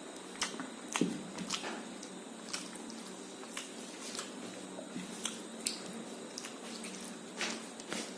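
Wet chewing and mouth sounds of someone eating rice with egg curry. Irregular sharp clicks and squishes come every half second or so, the loudest about a second in and again near the end.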